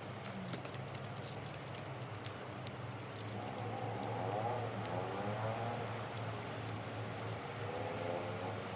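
Scattered light metallic clinks and taps, densest in the first few seconds, over a steady low hum.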